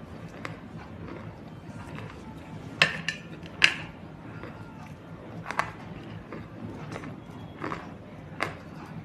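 A handful of sharp, separate crunches or cracks, the loudest two about three and four seconds in, over a low steady hum.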